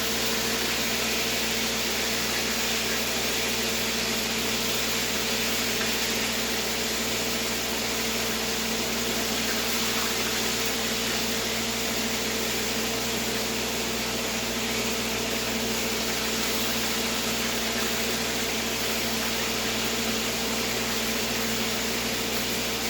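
Pieces of deer heart frying in hot oil, sizzling with a steady, even hiss, over a steady low hum.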